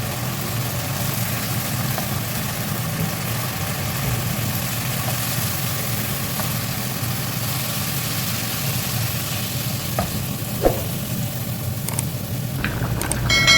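Fish curry sizzling and frying in a pan over a steady low hum, with a couple of light knocks about ten seconds in.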